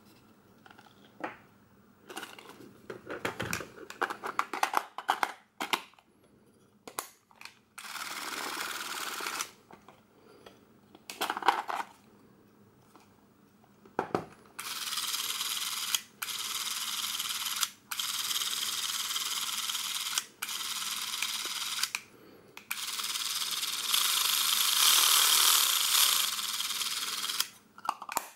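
Clicks, taps and rattles of hands handling a Super 8 film cartridge, batteries and a Braun Nizo 156 XL camera body. Then come several stretches of steady hiss, each a second or more long, that start and stop abruptly.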